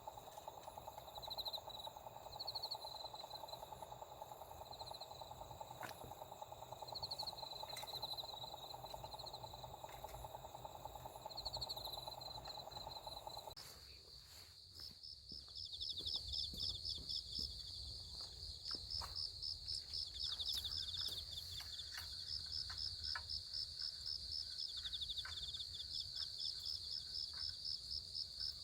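Crickets and other insects chirping in high, pulsing trills over a steady lower drone. About halfway through the drone stops abruptly, and a denser, fast-pulsing high trill carries on.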